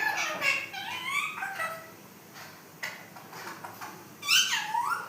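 Pet parrot chattering, a run of gliding whistled calls through the first two seconds, then a louder call that falls and rises in pitch near the end.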